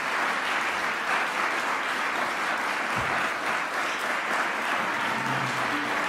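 Audience applauding steadily after an opera aria, with a dense, even sound of many hands clapping.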